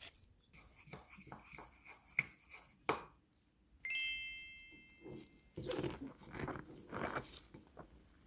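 Kitchen handling sounds, clicks and rustling, with a single bell-like ding about halfway through that rings out and fades over a second and a half.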